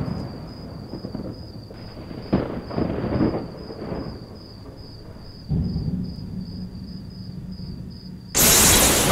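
Low rumbling that swells and fades several times, then a sudden very loud crash about eight seconds in. A faint high pulsing tone runs underneath.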